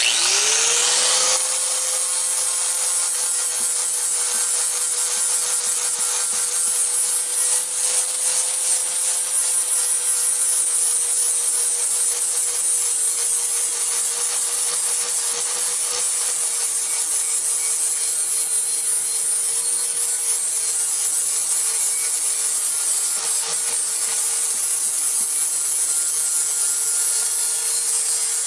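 Handheld electric angle grinder spinning up to speed in the first second, then running at a steady whine while it grinds rust off a steel motorcycle exhaust pipe.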